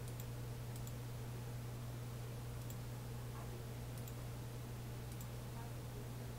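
Computer mouse button clicks: a few faint, sharp clicks scattered through, some in quick pairs, over a steady low hum.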